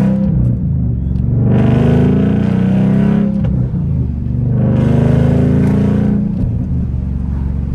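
Ford Mustang GT 5.0 V8 exhaust heard from the cabin with the windows down, accelerating: the engine note climbs, drops at an upshift about three seconds in, climbs again and drops at a second upshift near the end, then settles into a steady cruise.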